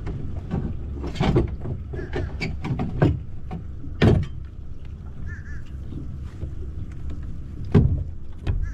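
A metal boat anchor being handled at the bow, knocking against the fiberglass deck several times as it is readied to drop, over a steady low hum.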